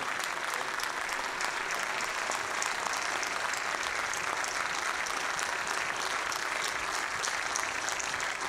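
Large crowd applauding steadily, a dense, even wash of many hands clapping.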